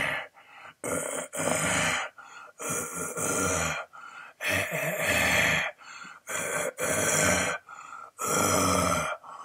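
A man making a string of wordless vocal noises, grunts and groans rather than words, each under a second long with short pauses between.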